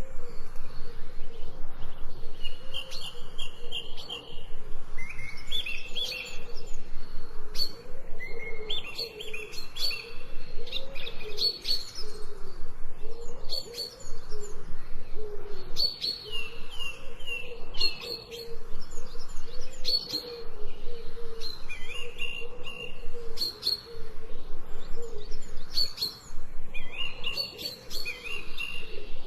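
Birds chirping and calling, many short chirp phrases repeating every second or two, with a lower warbling call running underneath.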